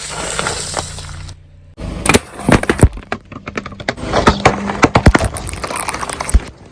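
Brittle objects cracking and crunching as a car's tyre rolls over them: a dense, irregular run of sharp snaps and breaking sounds.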